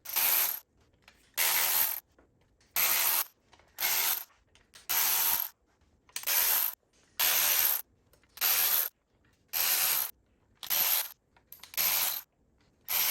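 Ratchet wrench clicking in repeated strokes, about one a second, backing out the oil pan bolts on a Porsche Boxster 986 engine.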